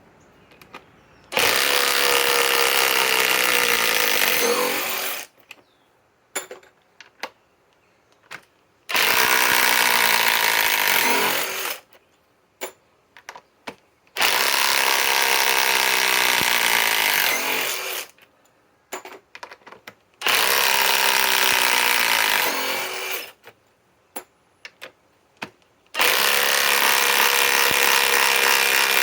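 RIDGID subcompact cordless impact wrench running in five bursts of about three to four seconds each, backing out 6-inch lag screws one after another. Small clicks and knocks fall in the short pauses between bursts.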